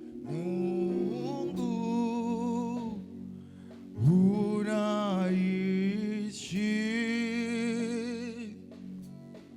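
Gospel worship singing: sung notes with a wide vibrato over a steady held chord. There are three phrases, starting just after the opening, about four seconds in, and about six and a half seconds in, and each one swoops up into its note.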